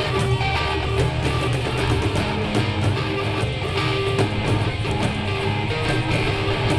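Live rock band playing: electric guitars over a drum kit, a steady, continuous instrumental passage.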